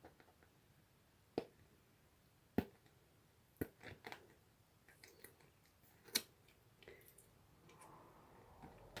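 Faint, scattered clicks and ticks of a rigid plastic top loader being handled while a photocard is worked out of it, about seven sharp taps spread over several seconds.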